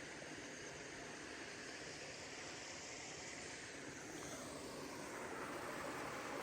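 Steady rush of a creek and its small waterfall, an even hiss that grows a little louder about four seconds in.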